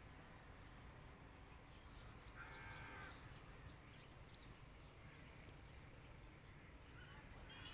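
A crow caws once, about two and a half seconds in, over a faint low rumble from the passing freight train. A fainter bird call follows near the end.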